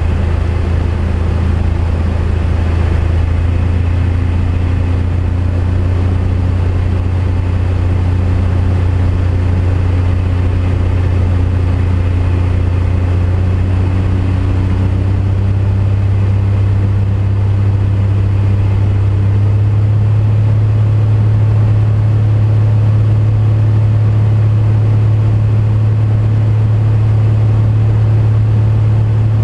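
Light single-engine aircraft's engine and propeller running steadily, heard inside the cabin as a loud low hum. Its pitch steps up slightly about two-thirds of the way through.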